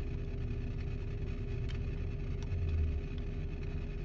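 Steady low hum of a car, heard from inside its cabin, with a few faint clicks.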